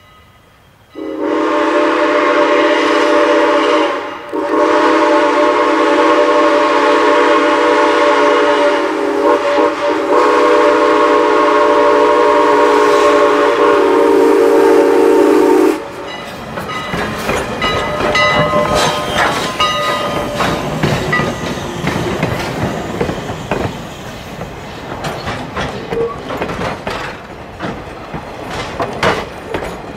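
Steam whistle of Strasburg Rail Road 2-6-0 Mogul No. 89, a chord of several steady notes: a short blast, then one long blast held about eleven seconds that cuts off sharply. Then the passenger coaches roll past close by with rapid clicking and knocking of wheels over rail joints.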